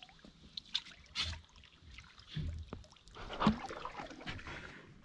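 A canoe being paddled: the paddle dips and pulls through the water with splashes and drips, and a few short knocks.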